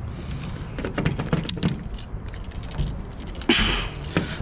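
Handling noise as straps and a clamp bar are worked on a glass-carrying rack: scattered light metal clinks and knocks, with a short burst of rustling about three and a half seconds in.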